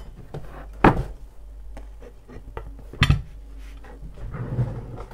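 Kitchen clatter of tableware being handled on a counter: two sharp knocks, about a second in and again about three seconds in, with lighter clinks between.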